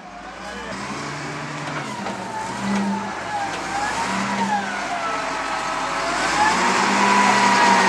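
XCMG ZL50GN wheel loader working, its diesel engine revving up and down with a whine that rises and falls in pitch several times, growing louder near the end.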